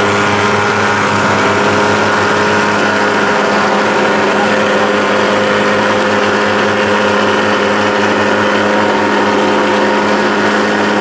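SuperFogger TH-160 thermal fogging machine's pulse-jet engine running steadily while it pours out dense fog: one constant deep pitch with higher tones above it, loud and unchanging.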